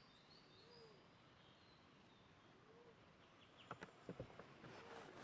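Faint bird calls: a low, rising-then-falling note repeated about every two seconds, with thin high chirps from another bird in the first second. A few soft clicks and rustles come in from about three and a half seconds in.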